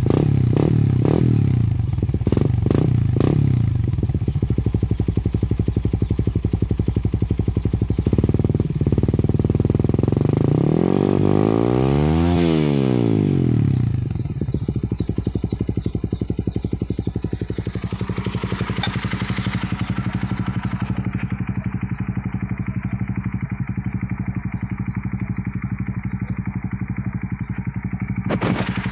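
Suzuki Raider 150 Fi motorcycle engine, freshly overhauled, being revved: a few quick throttle blips, then one long rev that rises and falls back about midway, after which it settles to a steady idle.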